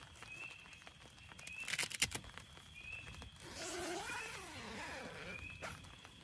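Dome tent being handled: a quick clatter of sharp clicks from the tent poles about two seconds in, then rustling nylon with squeaky, sliding scrapes as a pole is worked against the tent fabric. Behind it, a short chirp repeats about every 1.2 seconds.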